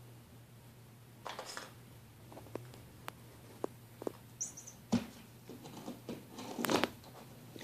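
A kitten playing with toys on a carpet: scattered light clicks, taps and rustles from the plastic toys and cardboard box, with a brief high squeak about four and a half seconds in and a louder rustling scuffle near the end.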